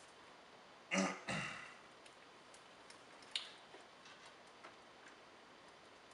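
Faint plastic clicks and ticks of wiring-harness connectors being handled at the back of a car head unit, with one sharper click about three and a half seconds in. About a second in, a brief throat-clearing noise is the loudest sound.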